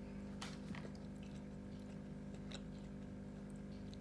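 A child chewing a soft piece of candy sushi with her mouth closed, quietly, with a few small clicks and smacks.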